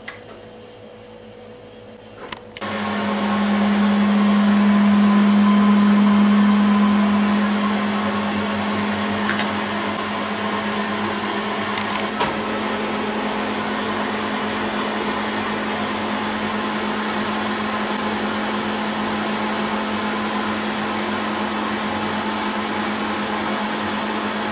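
A kitchen appliance's fan motor switches on about two and a half seconds in and runs with a steady low hum and air noise, louder for the first few seconds before settling; a light click comes near the middle.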